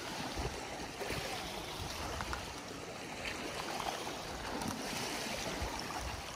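Steady rushing of a river rapid.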